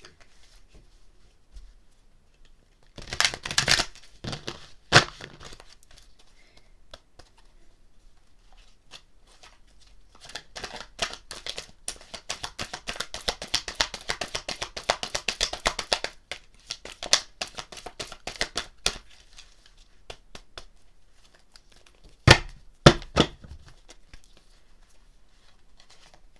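A deck of oracle cards being shuffled by hand: some sharp slaps and rustles, then a long run of rapid card flicks lasting about six seconds, and two sharp snaps near the end.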